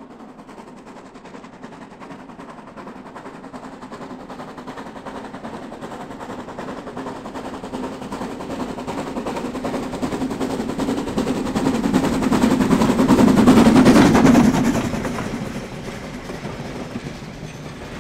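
Harz narrow-gauge 2-10-2 tank steam locomotive working hard uphill with a train, its rapid exhaust beats growing louder as it approaches. The sound is loudest as the engine passes about 13 to 14 seconds in, then falls away as the coaches roll by.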